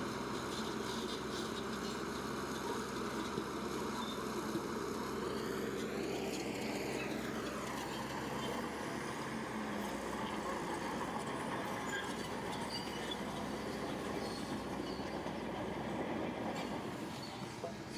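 Bulldozer's diesel engine running steadily under load, its pitch rising and falling once about six seconds in.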